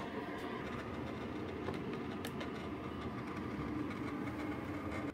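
Keurig K-Café brewer running its pump through a 12-ounce cleansing brew of descaling solution, a steady mechanical drone with a few light clicks, cutting off abruptly near the end.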